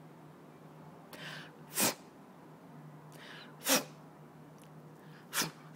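Keeshond puppy sneezing three times, about two seconds apart, each a short breath in followed by a sharp sneeze.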